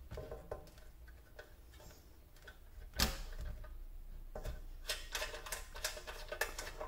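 Small metallic clicks and taps of a cable's ring terminal being fitted onto a power inverter's screw-on terminal post, with a sharper click about three seconds in and a run of light clicks near the end.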